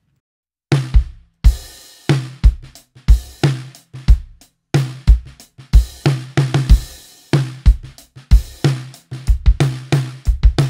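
Drum kit playing a groove, its kick drum picked up by a sub kick mic set a few inches off the resonant head, giving deep low thumps under the snare, hi-hat and cymbals. It is a processed recording, and it starts after a short silence.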